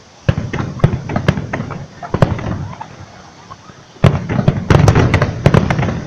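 Fireworks display going off in sharp bangs and cracks. There is a quick string of bangs in the first couple of seconds, a brief lull, then a dense barrage of rapid bangs from about four seconds in.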